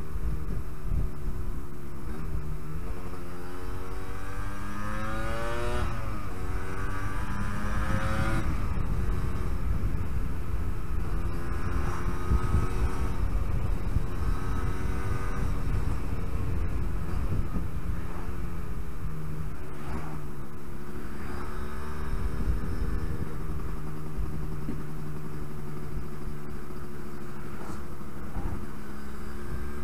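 Yamaha RD125LC YPVS single-cylinder two-stroke engine, heard on board while riding, being run in. It rises in revs twice in the first several seconds with a short drop between, as at a gear change. It then settles to a steady cruise, with a brief dip about twenty seconds in.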